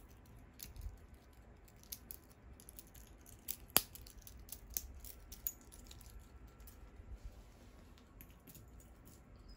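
Faint, scattered clicks and light knocks of wristwatches being handled and set down, with one sharp click about four seconds in.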